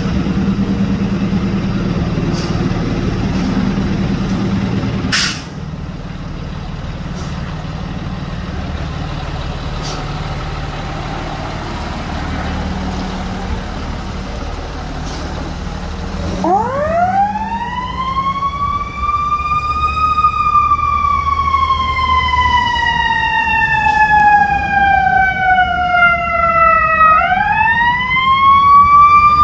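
Fire engine's diesel engine running with a low rumble as it pulls out, with a short hiss about five seconds in. About sixteen seconds in its siren winds up, falls slowly in pitch for several seconds, then winds up again near the end.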